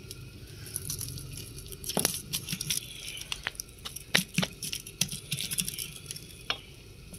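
Scattered light clicks and taps of hands and a utensil working a stuffed paratha: butter being dotted over the vegetable filling and the dough being folded over it.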